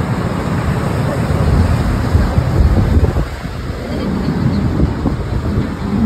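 Wind buffeting the microphone: a loud, gusty low rumble, strongest about two to three seconds in.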